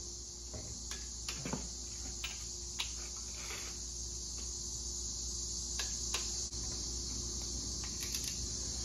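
Scattered sharp clicks from a torque wrench as the engine block's main bearing cap bolts are tightened to spec, over a steady high chirring of crickets.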